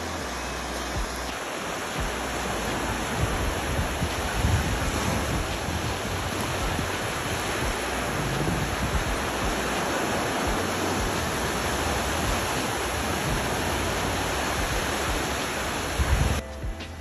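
Surf breaking and washing onto a sandy beach, a steady rush of waves with irregular low rumbles of wind on the microphone. The rush breaks off suddenly near the end.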